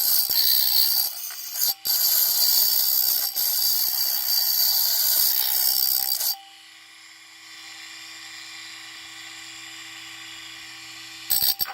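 Small one-speed 12-volt lapidary/lathe running, with a high-pitched rasping hiss that stops suddenly about six seconds in, leaving a quieter steady motor hum.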